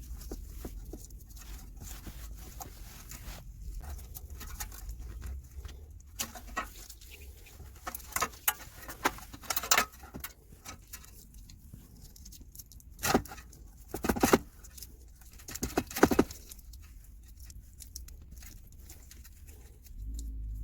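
Scattered small clicks, taps and scrapes from hands working on parts, with a few louder bursts of scraping and knocking in the second half.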